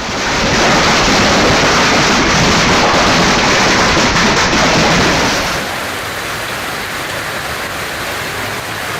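Heavy storm downpour, a dense steady hiss that drops noticeably quieter about five and a half seconds in.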